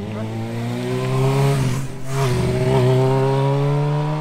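A motorcycle accelerates up the street and passes close by, its engine note climbing as it nears and then holding steady as it rides on. A second motorcycle idles steadily near the microphone underneath.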